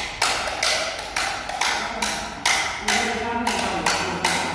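Sharp taps in a steady rhythm, about two a second, each ringing briefly, with a voice talking faintly underneath.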